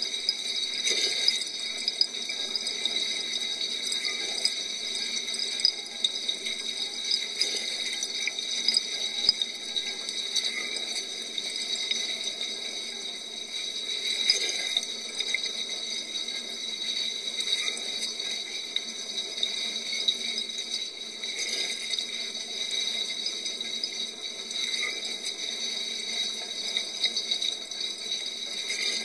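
Water spraying and splashing inside a running dishwasher during the wash cycle: a steady wash of spray, swelling with small splatters every three to four seconds.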